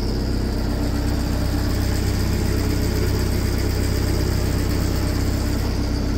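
Diesel engine of a JCB 8060 midi excavator running steadily at idle.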